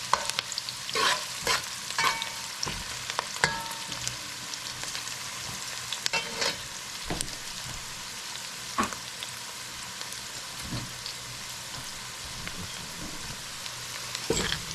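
Onions sizzling steadily as they fry in a pan, being cooked down to caramelize, with a utensil clinking and scraping against the pan as they are stirred, most often in the first few seconds.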